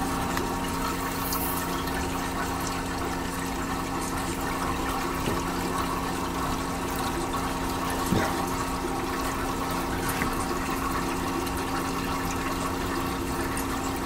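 Propane refrigerant flowing out of a GE monitor-top refrigerator's high-side float chamber through a gauge-manifold hose back into the tank, a steady rushing flow over a steady hum from the running unit, with one light knock about eight seconds in. The charge is being let back out because the system seems a little overcharged.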